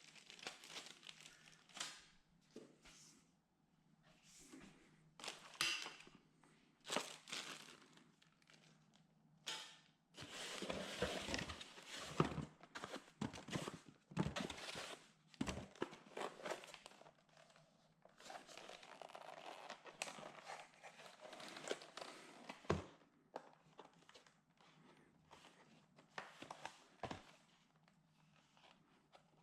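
Packaging being handled and torn open: crinkling plastic and tearing cardboard in irregular bursts, with scattered clicks and a few dull knocks, busiest in the middle stretch.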